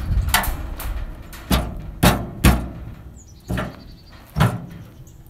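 A trailer door being worked at to get it open: a series of about six irregular knocks and bangs, over a low rumble.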